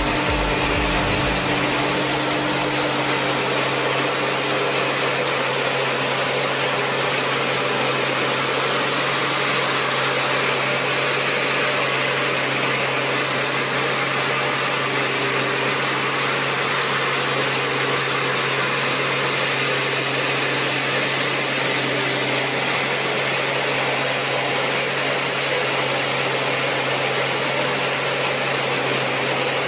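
An engine running steadily, a constant low hum under an even mechanical noise, with no change in speed.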